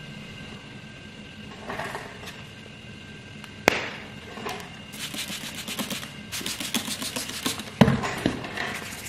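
Water being sprayed onto a plastic car headlight lens to wet it for wet sanding: a run of short hissing squirts in the middle, with two sharp knocks, one just before and one just after.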